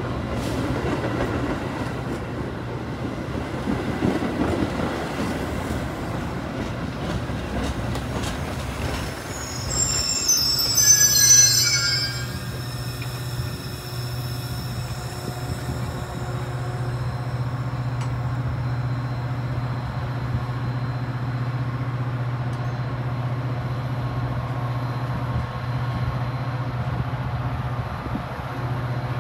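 Metra diesel commuter train rolling into the station with a rumble, its brakes and wheels squealing high for a couple of seconds about ten seconds in as it comes to a stop. After that comes a steady low drone from the locomotive standing at the platform.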